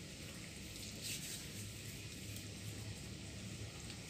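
Breaded Spam sticks deep-frying in oil in a wok: a steady, faint sizzle with a low hum underneath.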